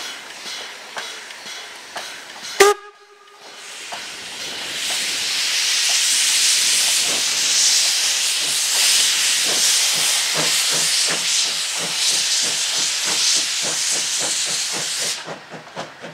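East German class 50 steam locomotive (50 3708) pulling away: a short whistle toot about two and a half seconds in, then a loud steam hiss that cuts off suddenly near the end. Under the hiss the exhaust beats come faster and faster as the engine gathers speed.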